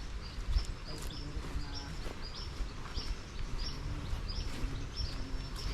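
A bird chirping over and over, short high chirps about two to three a second, over a low outdoor rumble.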